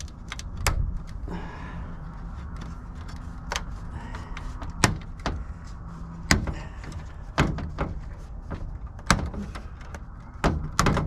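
A dozen or so sharp, irregular clicks and knocks as a TV's plastic and metal parts are pried and bent apart with a screwdriver.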